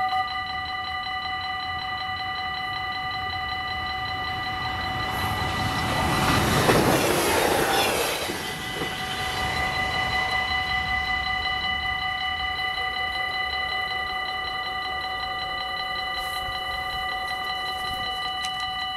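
Warning bells of a Dutch automatic half-barrier level crossing ringing rapidly and steadily while the barriers are down. About five seconds in, an express train rushes past for about three seconds, louder than the bells, and then the bells ring on.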